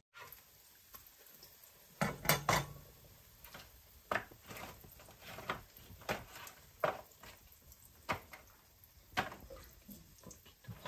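Kitchen utensil knocking and scraping against cookware in irregular clinks, about one a second, with the loudest cluster about two seconds in.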